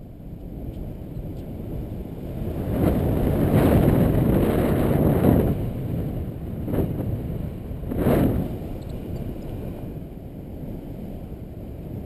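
Wind buffeting the microphone of a camera in paraglider flight. It rises to a loud rush about three seconds in and holds for a few seconds, then comes back in two short gusts later on.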